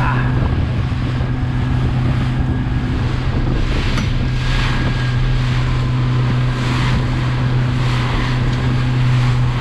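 A motorboat running at speed through choppy sea: the engine's steady low hum under the rush of water along the hull and wind on the microphone, with spray splashing up several times.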